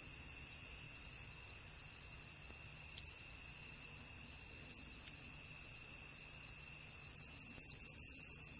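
Night insects, crickets and the like, chorusing in a steady high-pitched drone, with several layered pitches.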